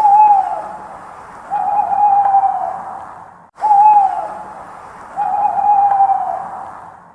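Owl hooting: a short hoot that drops in pitch, then a longer, level hoot, the pair heard twice over a faint hiss, each pair broken off by a brief sudden silence.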